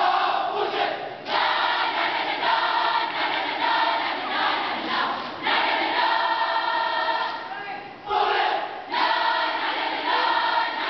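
Large cheering squad singing a cheer together in unison, in loud phrases broken by short pauses.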